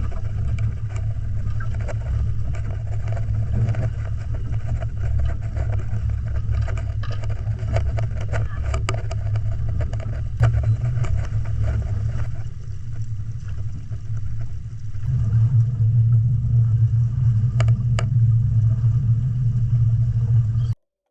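Towboat engine running steadily under load while pulling a sailboat that is stuck in the mud, getting louder about three-quarters of the way through as the throttle comes up. The sound cuts off abruptly just before the end.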